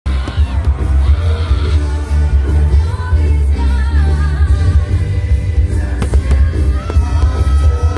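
Pop music with a singing voice over a heavy bass beat, with a few sharp cracks about six seconds in.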